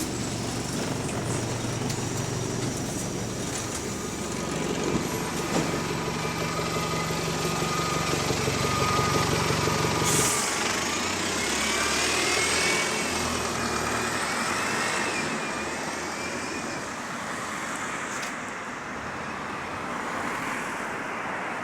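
Bus on the move, heard from inside the saloon: steady engine drone and road noise. About halfway through the low engine note drops away, and a wavering high-pitched whine rises and falls for a few seconds after it.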